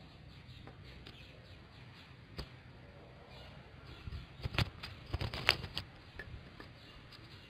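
A bamboo rod knocking and scraping on a concrete floor: one tap about two seconds in, then a quick run of clicks and knocks between about four and six seconds in, over a faint low hum.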